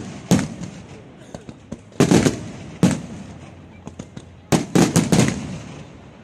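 Aerial firework shells bursting overhead: a bang shortly after the start, two more around two and three seconds in, then a quick run of four near the end, each trailing off into a rumbling echo.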